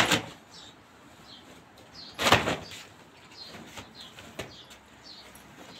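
Wet laundry being shaken out by hand, flapping sharply twice, at the start and about two seconds later. Birds chirp faintly throughout.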